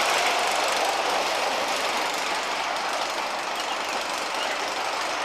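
PTC wooden junior roller coaster train running along its track: a steady, dense rattle that gets slightly quieter over a few seconds.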